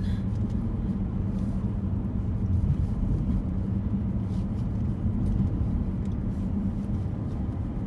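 Steady low rumble of a car driving on a paved road, heard from inside the cabin: engine hum and tyre noise.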